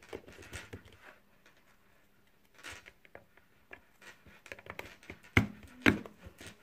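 Plastic battery compartment of a home electrolysis unit being handled: light rustling and taps as a 9V battery is seated and the cover is fitted back on. Near the end come two sharp clicks about half a second apart as the plastic cover is pressed shut.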